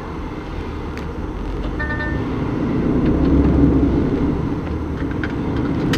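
Lorry's diesel engine and road noise heard inside the cab while driving, growing louder around the middle. A short beep sounds about two seconds in.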